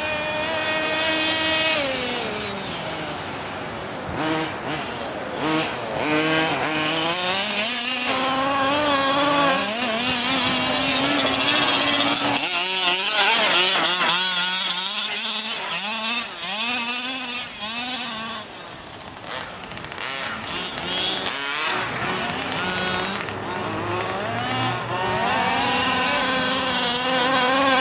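Small two-stroke gas engine of a 1/5-scale RC off-road car revving up and down as it is driven, its pitch rising and falling over and over. It briefly eases off near the middle and again about two-thirds of the way through.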